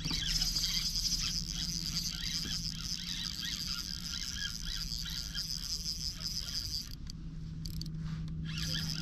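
Spinning reel being cranked in, a fast fluttering whir of its gears that pauses briefly about seven seconds in and then starts again.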